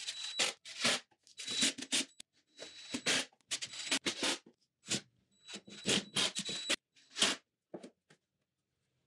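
A plywood drawer slid out and pushed back in several times on metal ball-bearing drawer slides, heard as a run of short sliding strokes with brief pauses, some with a faint thin squeal.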